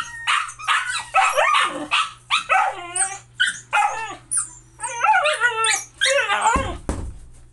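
Dogs barking, yipping and whining in quick succession, about two to three calls a second, excited as their food is dished out. A dull thump near the end.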